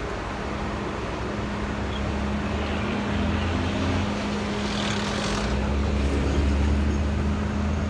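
Cars passing on the street over a steady engine hum; one car passes close, its tyre hiss and engine rising and falling about five to six seconds in.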